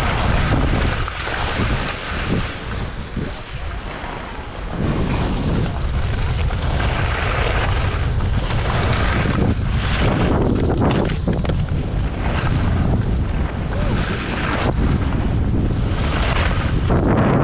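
Wind buffeting the skier's body-mounted camera microphone, with a steady low rumble, over the hiss and scrape of skis sliding and turning on packed, tracked snow. The noise drops for a few seconds just after the start, then picks up again with swells of hiss that come and go with the turns.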